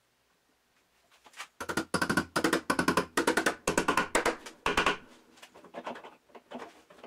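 Small hammer tapping a metal bar back into the register of a Zuckermann harpsichord to secure it. A quick run of sharp taps, about four or five a second, starts about a second and a half in, then gives way to lighter, sparser taps toward the end.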